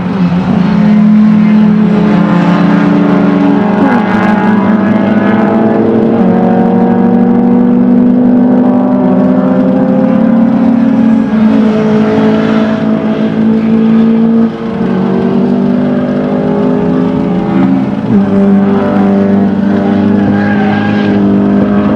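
Classic touring car racing engines running hard at high revs, one car passing close near the end with a falling pitch.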